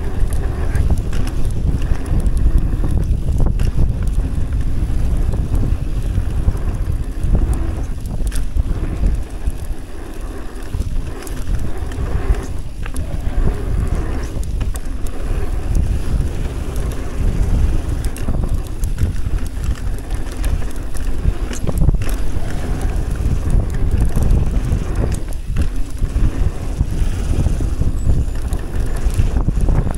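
Wind buffeting an action camera's microphone during a mountain-bike descent, a loud, steady low rumble of air and tyres on the trail, with scattered knocks and rattles from the bike over rough ground.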